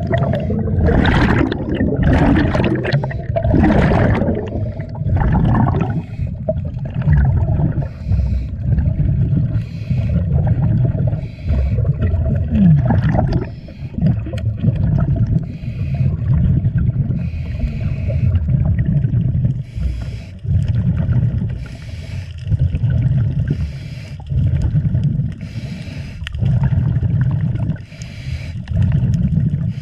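A diver's breathing heard underwater: exhaled air bubbling out in regular bursts, with a low rumble, about once a second at first and then about every two seconds.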